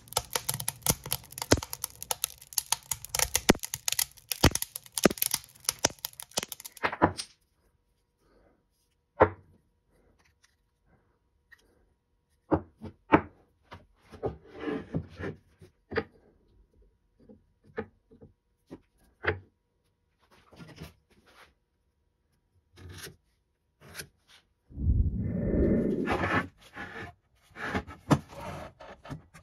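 Scrap wood and paper burning in a wood stove, crackling and popping quickly for about seven seconds. Then scattered clicks and scrapes, and near the end a louder, lower scraping knock as a wooden board is handled on a miter saw table.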